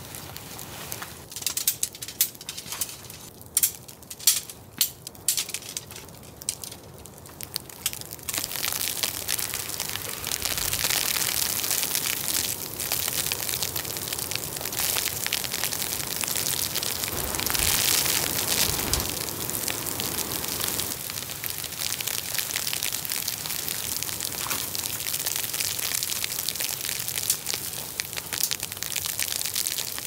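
Tarp-and-tent pitching in sleety snow: a run of sharp clicks and knocks for the first several seconds, then a steady hissing rustle from about eight seconds in.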